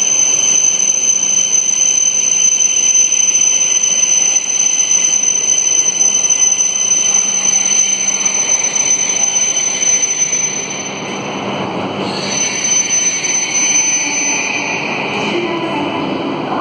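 E5-series Shinkansen train moving slowly past a platform in an underground station: steady running noise with a high, constant whine that eases off about ten seconds in.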